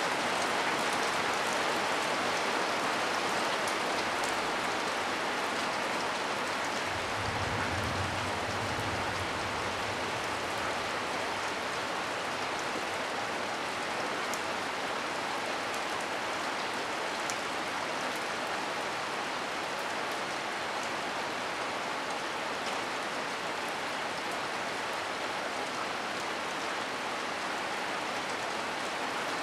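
Heavy rain falling steadily, with scattered close drop ticks and a brief low rumble about seven seconds in.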